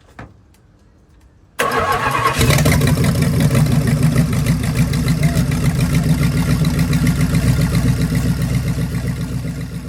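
1971 Plymouth Duster's 360 cubic-inch Mopar V8 starting up about a second and a half in, catching almost at once, then running steadily.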